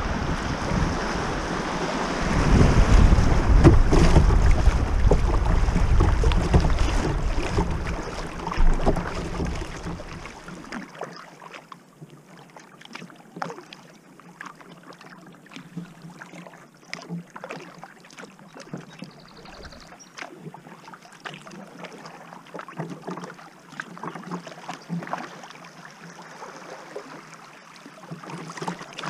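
Kayaking on a river: wind rumbles on the microphone for about the first ten seconds, then dies down, leaving quieter light splashes and drips from paddle strokes and water lapping the kayak's hull.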